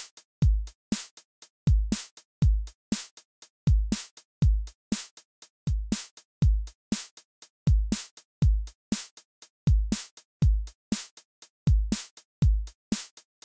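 Background music: a steady electronic drum beat of deep kick drums and sharp clicking hits, without a melody.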